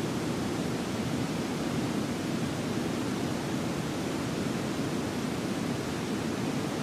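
Steady, even rushing noise with no distinct events, like a wind or running-water ambience.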